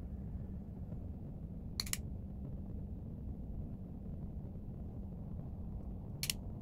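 Steady low background hum with two brief sharp clicks, about two seconds in and again near the end.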